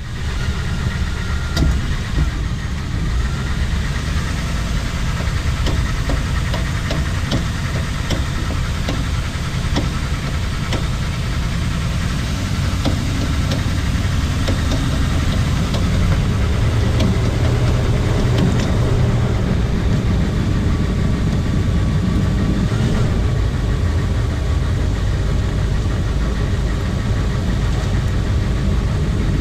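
2000 Toyota Land Cruiser 100 Series driving with steady road and drivetrain rumble, over which a repeated rotational clicking from the drivetrain stands out most clearly in the first half. The owner says it repeats several times per wheel revolution and fades above about 30 mph; it persists after a new driver-side CV axle, ball joint and wheel bearings and is not on one side, so he doubts it is a CV joint.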